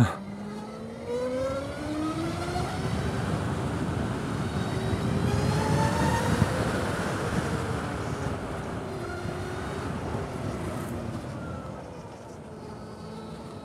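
A motor vehicle accelerating, its pitch rising steadily over the first few seconds, then levelling off and dropping slightly. Road and wind noise build to a peak around the middle and fade toward the end.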